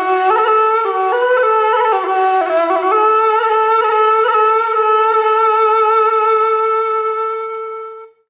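A solo wind instrument playing a short melody of stepped notes, then holding one long note that fades out near the end.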